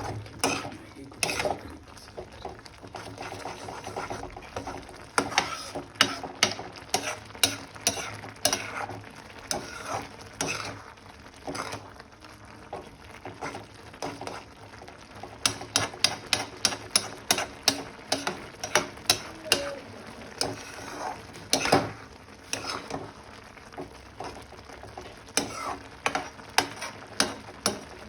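A utensil stirring Maggi noodles in a pan, clicking and scraping against the pan again and again, in quick runs of several strikes a second in the second half, over a faint frying sizzle.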